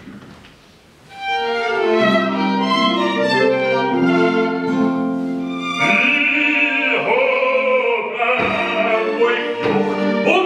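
Schrammel quartet of two violins, accordion and contraguitar starting to play a Viennese song about a second in. Around the middle a man's singing voice comes in over them with sliding, wavering notes.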